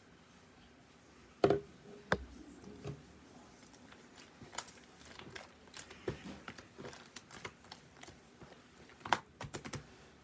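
Slime being squeezed and poked, making irregular sharp clicks and crackles, with louder snaps about a second and a half in and again near the end.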